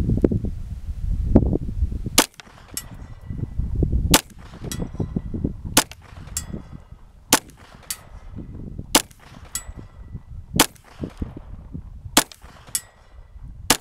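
Ruger Mark III .22 LR semi-automatic pistol fired at a steady pace, eight sharp cracks about a second and a half apart starting about two seconds in. Most shots are followed about half a second later by a faint ring of the bullet striking a steel disc target 100 yards away. A low rumble fills the first two seconds.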